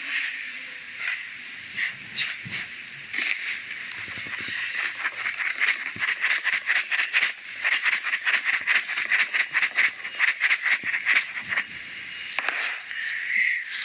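Hands rubbing and mixing coarse semolina in a bowl with a little orange-blossom water: a gritty, hissing rasp in quick repeated strokes, fastest through the middle.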